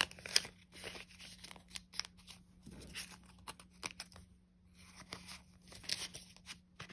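Paper banknotes and a paper envelope rustling and crinkling as cash is handled and stuffed in, a run of short, irregular crisp rustles and soft ticks.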